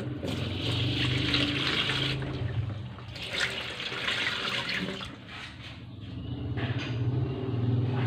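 Water poured from a plastic scoop into a top-loading washing machine's tub, splashing onto the pulsator in two pours of about two seconds each, over a steady low hum.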